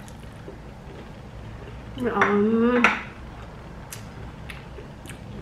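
A voice makes a wordless, drawn-out sound with a wavering pitch for about a second, about two seconds in. Near the end come a few light clinks of dishes.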